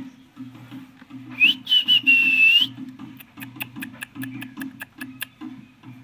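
A single high whistle that rises and is then held for about a second, followed by a run of sharp clicks, about five a second, over a low rhythmic throb.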